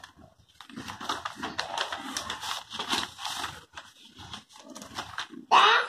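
Paper pages of a spiral-bound workbook rustling and flapping as they are leafed through in a bunch, an uneven rustle lasting about five seconds. Near the end a child's voice starts reading aloud.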